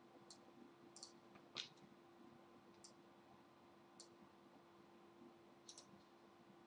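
Near silence with faint, scattered computer mouse clicks, about six of them including a quick double click near the end, over a low steady hum.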